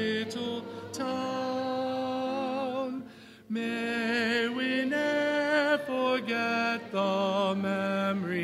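People singing the university's alma mater (school hymn), holding long notes with vibrato, with a short break for breath about three seconds in.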